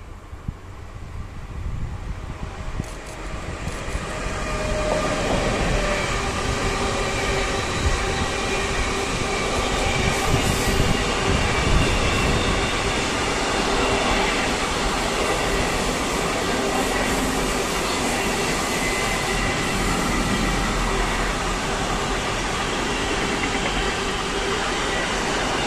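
An electric locomotive and a long intermodal freight train of pocket wagons carrying semitrailers roll past on the line. The wheels' rumble on the rails grows over the first few seconds as the train nears, then holds steady as the wagons pass.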